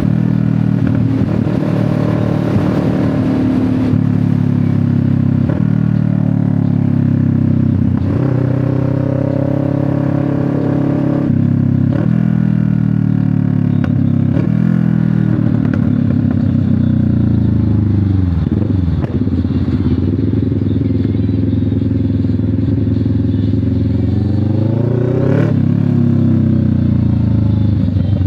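CF Moto 650NK parallel-twin engine through an SC Project exhaust, under way: engine speed climbs and drops again and again through gear changes. About two-thirds in, the revs fall low, then climb steadily to a sharp shift near the end.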